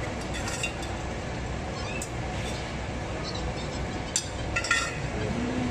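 Steady background din of a busy restaurant with faint voices, and a few sharp clinks of metal and tableware, the loudest a little after the middle.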